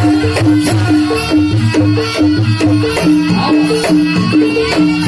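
Jaranan dance music from a Javanese gamelan-style percussion ensemble: pitched metal notes repeat in a fast, even pattern over a steady drum pulse, with a shift in the low notes about three seconds in.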